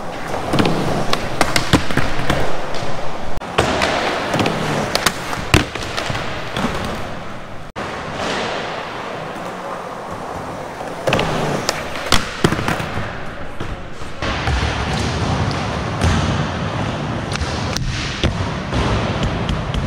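Skateboard wheels rolling on a smooth concrete floor, broken by sharp clacks of the board popping and landing. Near the end the board's truck scrapes along the edge of a ledge in a crooked grind.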